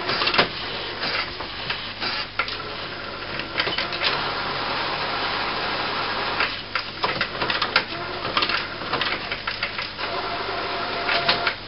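HP Photosmart inkjet printer going through its power-on start-up cycle. Its motors whir and the print carriage and paper mechanism click and clatter, with a steadier whir in the middle.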